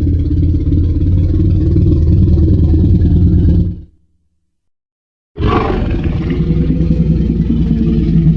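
Tyrannosaurus rex roar sound effects: a deep, loud roar that fades out a little under four seconds in, then after a second and a half of silence a second deep roar that starts abruptly and holds.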